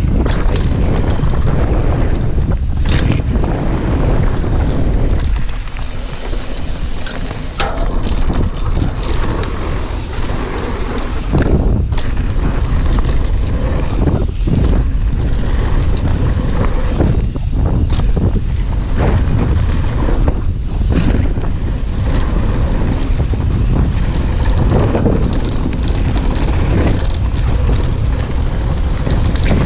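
Mountain bike descending a dirt trail at speed: wind buffeting the camera microphone over the rumble of knobby tyres on dirt, with frequent sharp knocks and rattles from the bike over bumps.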